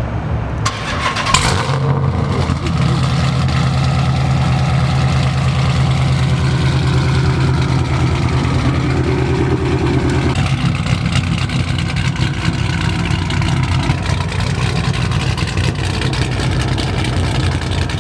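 Straight-piped, cammed 6.1 Hemi V8 of a Chrysler 300 SRT8 just after firing up, with a sharp crack about a second in. It then settles into a loud, choppy idle, the lumpy beat of an aggressive cam.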